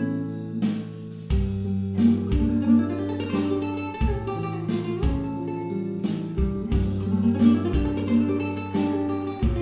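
Background music: acoustic guitar playing a rhythmic, Spanish-style strummed and plucked piece.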